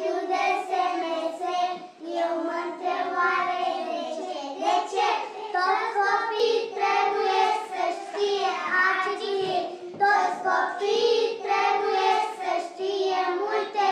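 Children singing a song, with long held notes.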